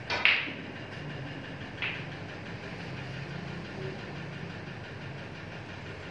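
Snooker balls clicking together: one sharp click just after the start and a lighter one about two seconds in, over a steady low hum.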